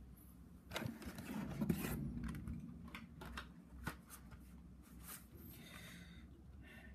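Carded Hot Wheels cars being handled, their cardboard backings and plastic blisters rustling, with a few sharp clicks.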